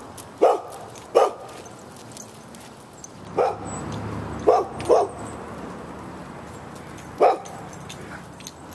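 A dog barking: six short single barks, with two close together about four and a half seconds in.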